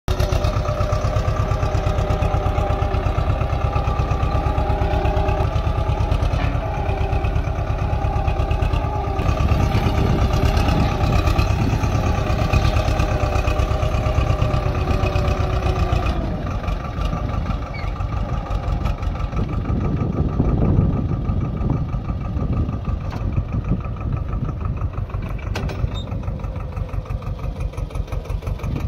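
Swaraj 724 XM Orchard tractor's two-cylinder diesel engine running steadily under load while pulling a single-bottom mouldboard plough through the soil. About sixteen seconds in the sound changes abruptly, becoming a little quieter and duller.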